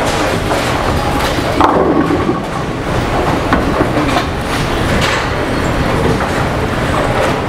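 Bowling alley din: bowling balls rolling down the lanes with a steady rumble, broken by several sharp clatters of pins being struck.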